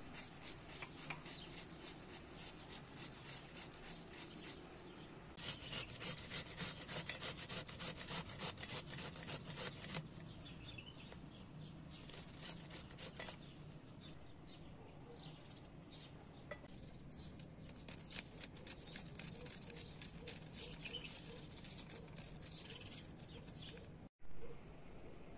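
Onion being grated by hand on a flat metal hand grater: rapid, even rasping strokes, loudest in the middle stretch.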